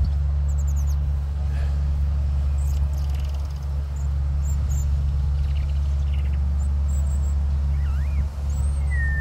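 A steady low rumble runs throughout, with faint high bird chirps and a short, wavering whistled phrase of birdsong near the end.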